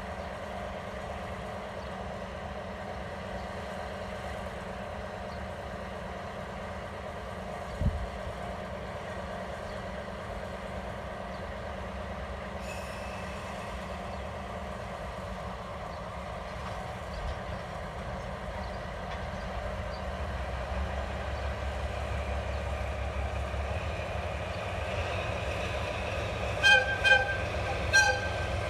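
KE65-class diesel locomotive running at low speed, its engine drone growing louder as it draws nearer, with one short thump about eight seconds in. Near the end it gives three short horn toots.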